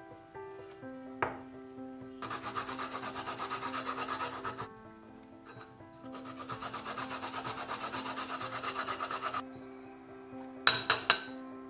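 Garlic cloves grated on a fine metal grater: rapid scraping strokes in two long runs, with soft background music under them. Near the end come three sharp knocks, the loudest sounds.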